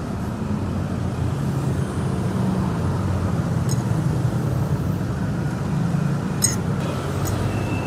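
Steady low rumble of road traffic, with a few light clinks of a metal spoon against a plate.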